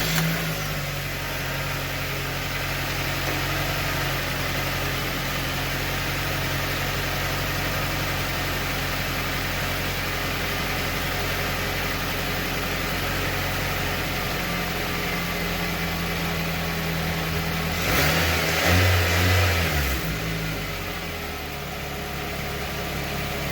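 Car engine idling steadily just after starting, with a brief rise and fall in engine speed about 18 seconds in. No metal rattle comes from underneath: the loose muffler clamp, now held with a metal zip tie, has stopped rattling.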